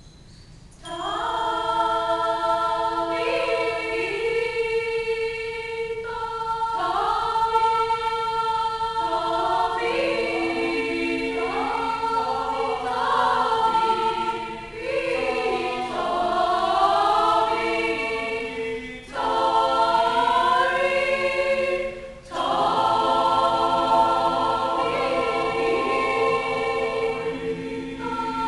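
Mixed-voice choir of women and men singing sustained chords in harmony, coming in about a second in and breaking off briefly between phrases.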